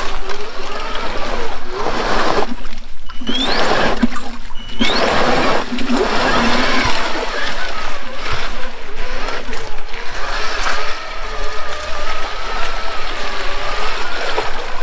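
Outrider Coyote electric trike driving through a shallow creek: its electric drive motor whines, the pitch wavering with the throttle. It cuts out twice briefly early on and rises again as power comes back, over water splashing under the wheels.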